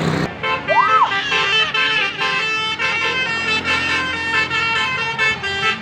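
Tour bus's melodic telolet horn (basuri style) playing a quick tune of short, changing notes, with a rising-then-falling whoop about a second in.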